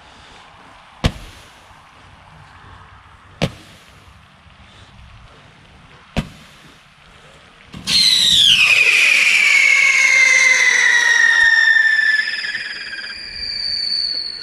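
A 1.4 girandola firework going off: three sharp single-shot reports a couple of seconds apart. About eight seconds in, its drive motors light together in a loud, many-toned whistle that falls steadily in pitch as the wheel spins up and lifts off, easing somewhat near the end.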